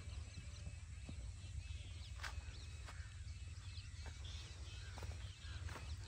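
Birds chirping and calling, many short chirps and warbles, over a low steady rumble, with a few sharp clicks.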